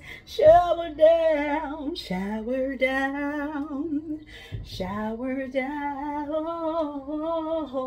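A woman singing a slow worship song unaccompanied, in long held notes with a wavering pitch and short pauses for breath between phrases.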